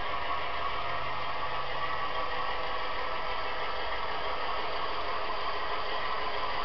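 Tsunami sound decoder in a Walthers U30B model locomotive playing a GE four-stroke diesel engine sound through a high-bass speaker, running steadily as the model rolls along the track.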